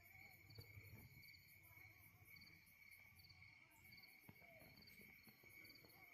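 Faint insect chorus of crickets: short chirps repeating every second or so over a steady high trill.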